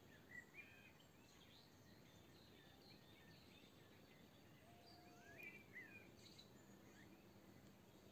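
Faint birds chirping over a very quiet forest background: a few short calls about half a second in, and another cluster of calls around five to six seconds in.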